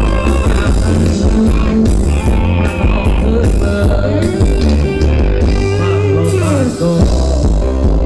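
Loud Thai ramwong dance music from a live band playing over loudspeakers: heavy bass, a steady beat and an electric guitar melody, with sliding notes about halfway through.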